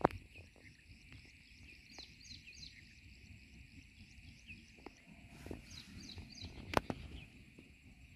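Small birds chirping in short, repeated falling calls over a steady insect drone, with a sharp click right at the start and another, louder one about seven seconds in.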